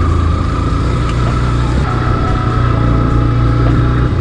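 Yamaha FZ-S V3.0 motorcycle's single-cylinder engine running at low road speed while climbing a rough gravel track, its note shifting slightly about two seconds in, with a steady high whine over it.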